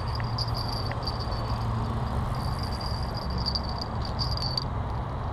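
An insect, cricket- or cicada-like, trilling high and thin on and off over a steady low outdoor rumble.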